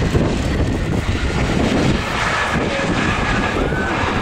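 Embraer E190 airliner's two GE CF34 turbofan engines running as the jet rolls down the runway just after touchdown, a steady rumble with a faint whine.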